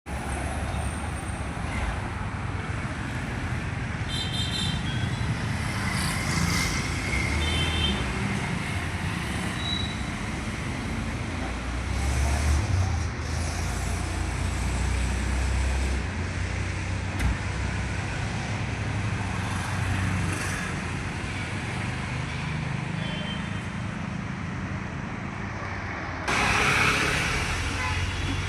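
Road traffic noise: steady engine rumble and road noise, with a few brief high-pitched tones scattered through it. About two seconds before the end there is a louder rush of noise.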